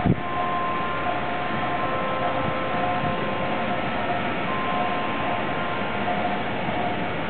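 Reading & Northern 425, a 4-6-2 steam locomotive, standing and hissing steam steadily, with faint steady whistling tones over the hiss. A brief thump right at the start.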